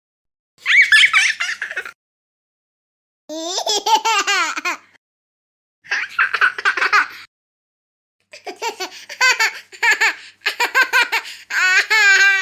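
High-pitched laughter sound effects, four short separate bursts of giggling laughter with dead silence between them; the last and longest comes near the end.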